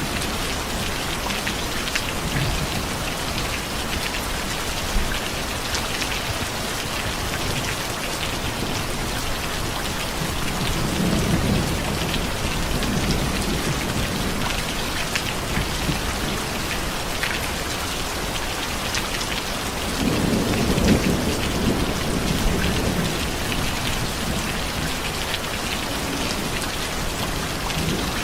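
Steady rain falling, with low rumbles of thunder swelling twice, about a third of the way in and again about two-thirds through.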